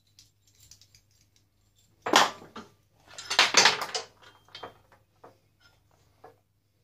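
Loose steel parts of a dismantled t-shirt heat press being handled: light clicks, a sudden clatter about two seconds in, a run of metal clinks and knocks around three to four seconds in, then a few lighter clicks.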